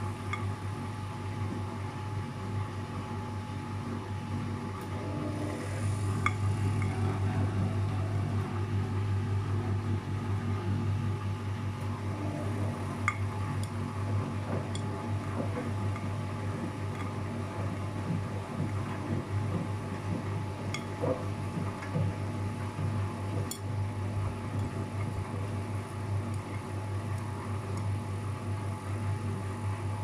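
Luxor WM 1042 front-loading washing machine turning its load of laundry and water in the drum: a steady low hum, with scattered light clinks and knocks against the door glass. It gets a little louder about six seconds in.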